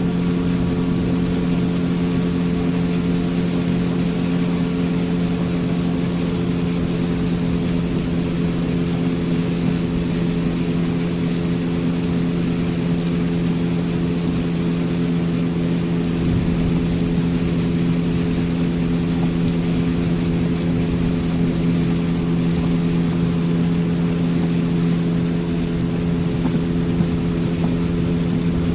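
Motorboat engine running at a steady cruising speed, a constant drone with no change in pitch, over a steady hiss of water and wind.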